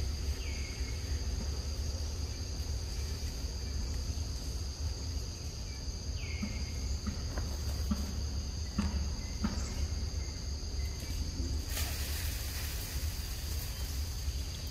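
Steady chorus of forest insects, two high shrill tones held without a break, over a low rumble. Two short falling chirps come about half a second and six seconds in, a few soft knocks around eight to nine seconds, and a rustling hiss for a couple of seconds near the end.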